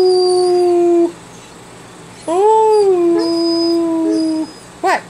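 A 12-week-old husky-type puppy howling. One long, steady howl ends about a second in, a second howl rises and then holds from a little after two seconds to about four and a half, and a short yip comes near the end.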